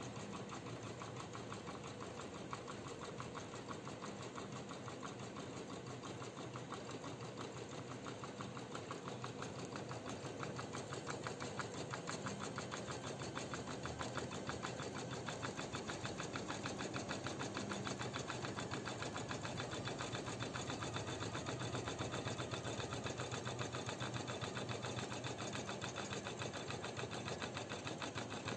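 Usha 550e computerised embroidery machine stitching a design, its needle running in a fast, steady rhythm that gets a little louder about ten seconds in.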